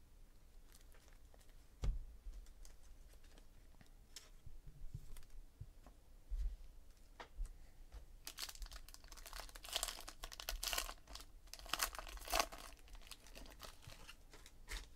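Foil wrapper of a sports card pack crinkling and tearing as it is ripped open by hand, in a dense run of crackles in the second half. Before that, a few light clicks and one sharp knock about two seconds in.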